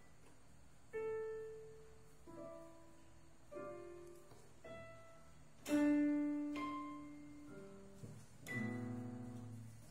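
Piano notes played slowly, one at a time about once a second, each ringing out and fading; a fuller chord sounds near the end.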